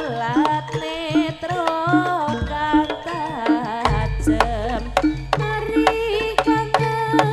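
Live Javanese jaranan music in langgam style: a woman singing a wavering melody over regular kendang drum strokes, with a deep low stroke about four seconds in.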